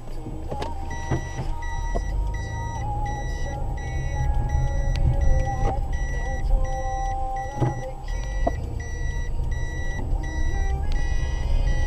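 A car's in-cabin reverse-gear warning beeping about twice a second, over the low rumble of the engine and road inside the car.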